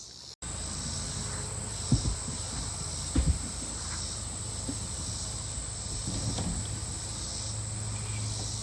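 Steady high-pitched chorus of insects, with a few low thumps about two and three seconds in.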